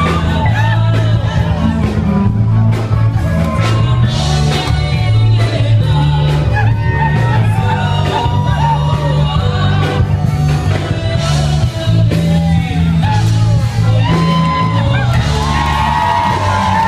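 Loud music with a singing voice over a bass line that steps from note to note and a steady drum beat, with shouts and whoops from the crowd.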